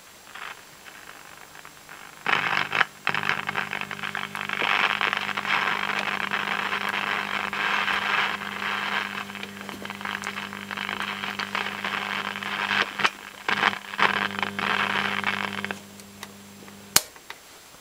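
AWA Radiola 467MA valve radio's loudspeaker giving out static hiss over a steady low hum, starting about two seconds in, dropping out briefly a few times and stopping near the end, followed by a single click. No station comes through: the set powers up after its first capacitor replacements but does little, which points to more bad capacitors in the audio and radio circuits.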